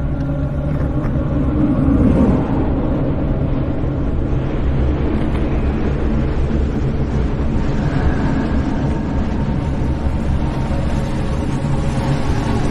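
Steady low rumbling drone with several held tones underneath, a dark horror ambience.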